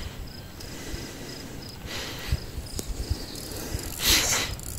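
Cricket chirping in a steady, even rhythm of about three short chirps a second. Brief rushing noises come about two seconds in and, louder, near the end.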